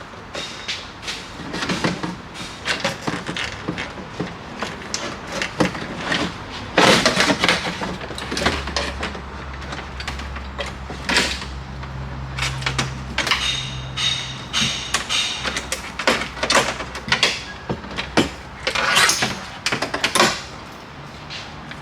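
Clicks, knocks and rattles of metal and plastic parts being worked loose inside a pickup truck door as the door latch assembly is removed. A low steady hum runs underneath through the middle.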